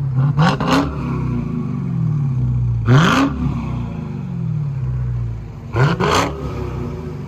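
A 2021 Dodge Challenger Hellcat's supercharged 6.2L Hemi V8 idles through a Black Widow Race Venom dual exhaust with an X-pipe and resonator delete. It is blipped three times: a quick double rev at the start, a bigger rev about three seconds in, and another double rev near six seconds, each time dropping back to idle. The tone is smooth and mean, without raspiness.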